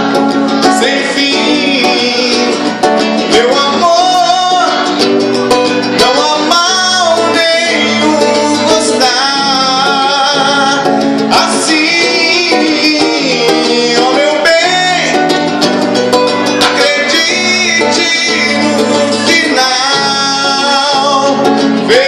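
Live MPB song: acoustic guitar accompanying a singer, music playing steadily throughout.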